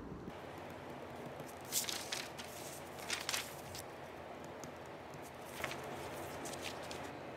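Sheets of paper rustling as they are handled on a desk, in a few short bursts over a steady low hiss.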